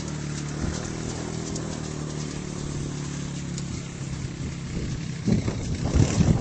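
An engine hums steadily at a low pitch while a horse's hooves strike the arena footing in light clicks. A few loud low thuds come near the end.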